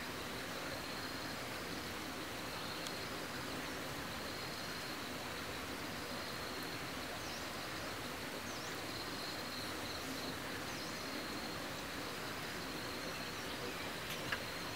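Forest ambience: insects buzzing steadily at a high pitch, swelling and fading in patches, with a few short bird chirps over a steady hiss.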